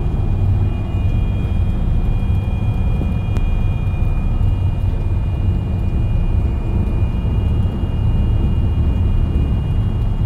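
Cab interior of a loaded Freightliner semi truck running downhill in eighth gear off the brakes: a steady low drone of the diesel engine at high revs holding the truck back, mixed with tyre and road noise, with a faint steady high whine above it.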